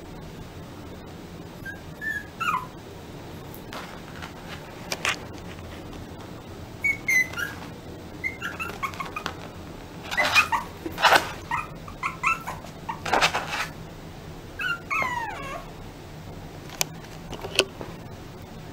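Small white puppy whining and yipping: short high whines that fall in pitch, with sharper, louder yips about halfway through.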